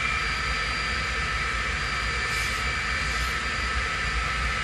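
Handheld hair dryer running steadily on its cool setting: a constant rush of air with a steady motor whine, drying freshly sprayed hair glue along a wig's hairline.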